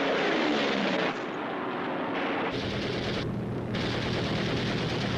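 Sound effects of an air battle: rapid machine-gun fire over propeller aircraft engines. In the first second one engine passes with a falling pitch, and a steady low engine drone sets in about halfway through.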